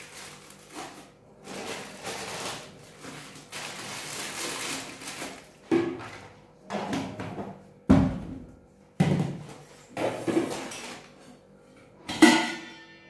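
Rustling of plastic grocery packets, then a series of separate knocks and clanks of stainless-steel storage containers and their lids being handled and set down on the floor. The last clank, near the end, is the loudest and rings briefly.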